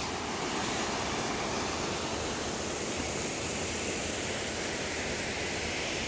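Steady rush of water from a small waterfall cascading over rock into a pool.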